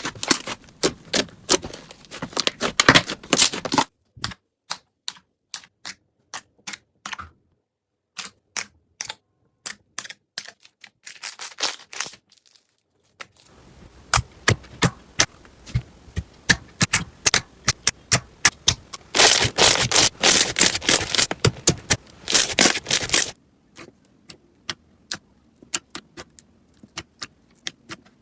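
Slime being played with, giving rapid runs of sharp crackling clicks and pops, as crunchy slime does. The clicking stops and starts again several times and is densest a little past two-thirds of the way through.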